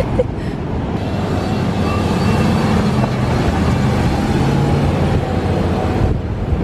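Full-size camper van's engine running hard under load as the van drives through soft beach sand to build speed and keep from getting stuck, with a steady engine note.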